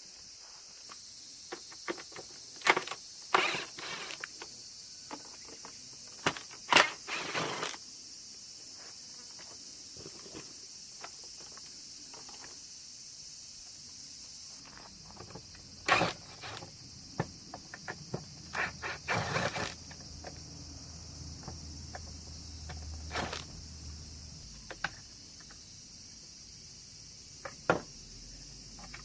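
Scattered clicks, taps and knocks, some in quick clusters, from hands working on the air conditioner's plastic parts during disassembly. A steady high-pitched hiss runs underneath.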